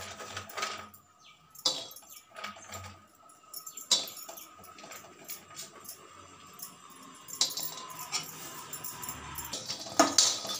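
Metal ladle clinking and scraping against an aluminium kadai as walnut halves are dry-roasted. There are a few scattered clinks at first, then a run of stirring and scraping near the end.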